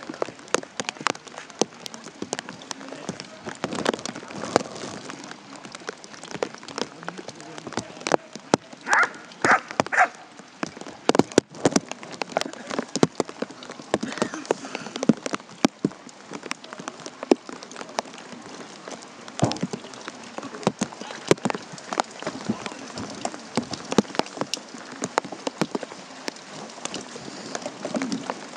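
Rain falling, with many drops ticking irregularly close to the microphone.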